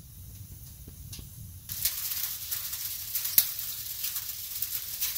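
Wood stove fire crackling faintly with a couple of small pops. About two seconds in, a louder steady hiss full of small ticks sets in: freezing rain and sleet falling on the shed.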